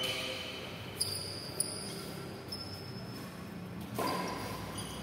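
Badminton rackets hitting a shuttlecock: two light, sharp hits about a second in, each with a short high ringing ping, then a harder hit about four seconds in.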